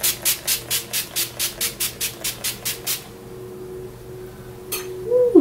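NYX Dewy Finish setting spray, a pump mist bottle, spritzed rapidly at the face: a quick run of short hissing sprays, about five a second, that stops about three seconds in. One more spritz follows near the end, then a brief falling voice sound.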